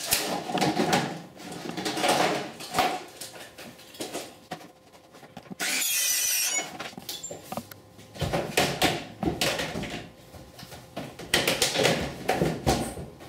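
Circular saw running on a saw-table track, making one short cut across a vinyl siding panel: about a second of loud, high-pitched noise midway. Before and after it come clicks, rustles and light knocks of the thin vinyl panel being handled and pressed into place on the wall.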